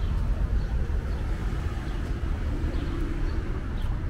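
Street ambience: a steady low rumble of car traffic on the road beside the sidewalk.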